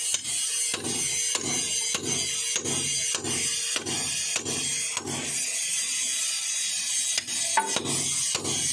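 Rhythmic mechanical strokes, about two to three a second, from hand-tool work on a tractor crankshaft's centre bore while the old clutch pilot bushing is forced out with cloth packed in behind it. A brief sharper squeak comes near the end.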